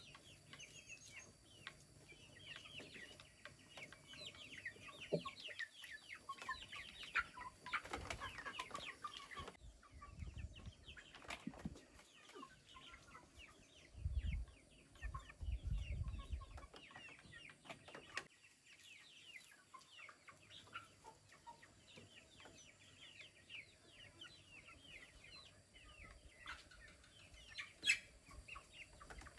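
Chickens clucking, with many short high chirps throughout and a few low thumps near the middle.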